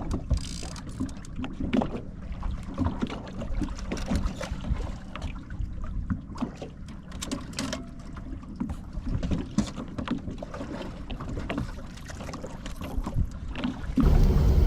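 Fishing gear being handled in a boat: irregular knocks, clunks and clatter over a low rumble. About a second before the end, a much louder steady rumble cuts in suddenly.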